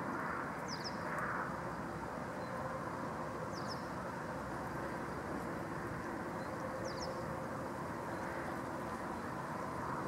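Steady low outdoor background rumble, with a bird giving three brief high double chirps about three seconds apart.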